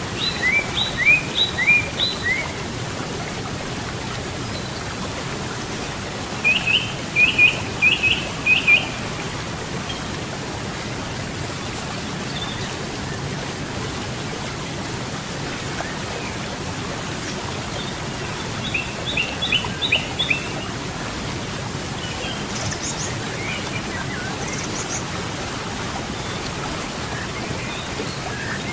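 Steady rush of flowing river water, with a songbird singing short phrases of quick chirping notes: at the start, about seven seconds in, and again around nineteen seconds in, with a few fainter high calls between.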